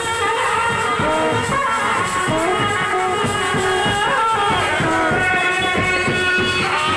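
Indian street brass band playing: a bending brass melody over a steady beat of drums and shakers.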